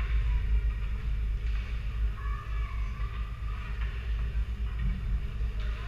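Ice rink ambience: a steady low rumble with spectators' voices and calls from the stands.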